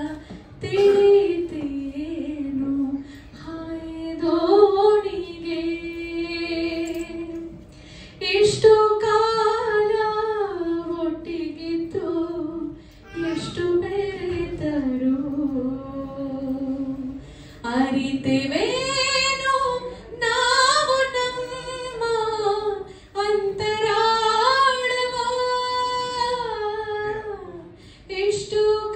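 A woman singing a Kannada song solo into a microphone, with no accompaniment. She sings long held phrases with sliding, ornamented notes and short pauses between phrases.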